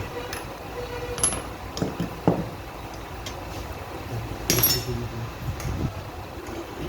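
Metal tools and engine parts clinking and knocking as they are handled: scattered single clicks, then a louder cluster of clinks past the middle, over a low steady background rumble.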